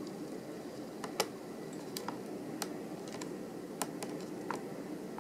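Light, scattered clicks of a small screwdriver working the screws on a laptop's screen bracket, about half a dozen sharp ticks a second or so apart over a steady hiss.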